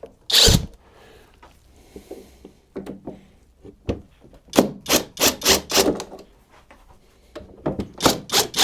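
A series of short knocks and scrapes from tools and parts being handled as a cover is unscrewed and taken off a wood chipper, with a quick run of clatters about halfway through.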